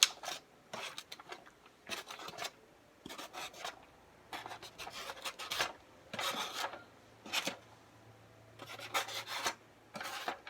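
Irregular short scraping and rasping sounds, about a dozen in all, as sliced onions are scraped or shaken out of a container into a bowl of pho.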